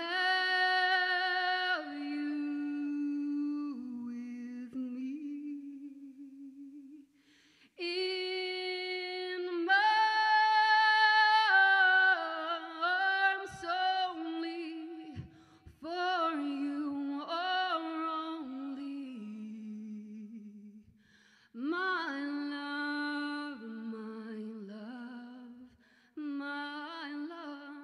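A woman singing a cappella into a microphone: unaccompanied sung phrases with long held notes and wavering, ornamented pitch, broken by short pauses for breath.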